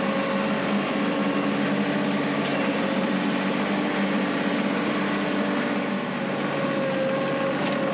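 Compact tractor engine running steadily with an even hum, heard from the operator's seat.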